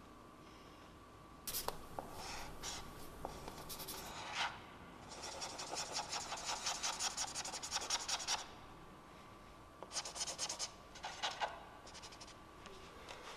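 Bouts of scratching and rubbing strokes, the longest lasting about three seconds near the middle, over a faint steady high hum.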